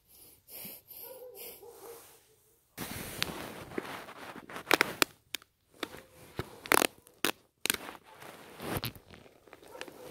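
Dry grass, twigs and soil rustling and crunching as the ground is poked and turned over by hand, with sharp crackles and snaps, starting about three seconds in.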